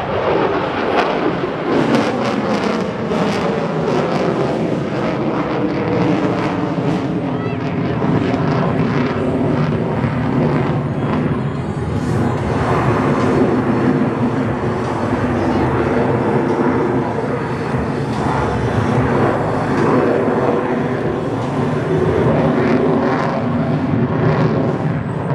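The F-22 Raptor's twin afterburning turbofan jet engines are heard loud and continuous. Their pitch falls steeply in the first couple of seconds as the jet passes, then holds fairly steady, and rises again towards the end.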